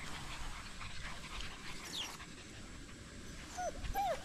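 Black German Shepherd puppies whimpering, with a few short high whines near the end.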